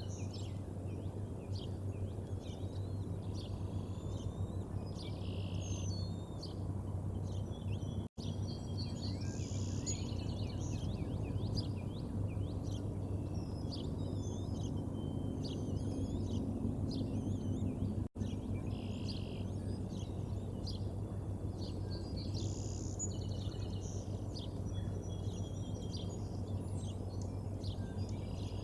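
Small songbirds singing and chirping around the nest over a steady low background hum, with one song phrase repeating every ten seconds or so. The sound drops out for a moment twice.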